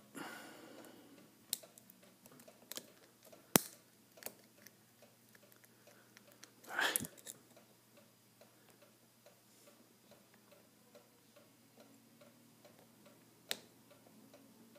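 Lock pick and tension wrench working the pin stack of a Castor Musqué CL pin-tumbler lock: faint scattered clicks and scrapes, with one sharp click about three and a half seconds in, as the picker sets pins one at a time.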